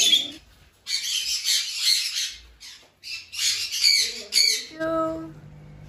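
Caged parrots screeching: three runs of harsh squawks, then a short, steadier pitched call near the end.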